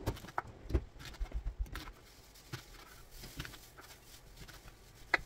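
Irregular light knocks and clicks of kitchen work: a knife cutting onions on a cutting board, with utensils being handled. There are a few heavier thumps in the first second and a sharp click near the end.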